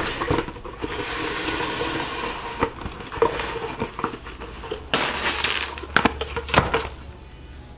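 Clear plastic wrap crinkling and crackling as it is pulled and pressed around a head, with a louder burst of crackling about five seconds in.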